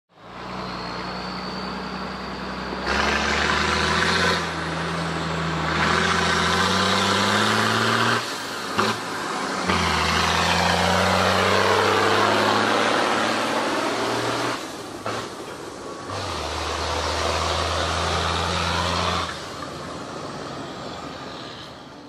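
Large Fendt farm tractor's diesel engine pulling away and accelerating under heavy load, heard in several short cut-together passes. The engine pitch climbs as it speeds up.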